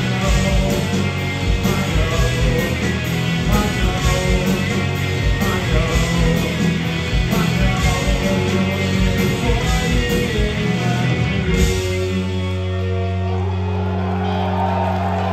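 Rock band playing live with distorted electric guitars, bass and drums. About twelve seconds in, the drums stop and a held guitar and bass chord rings on.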